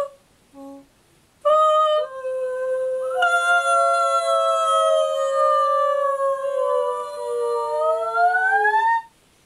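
Two women's voices singing long, wordless held notes. After a few short notes, both voices hold from about a second and a half in: one slowly slides down while the other slides up, the two lines cross, and both stop together near the end.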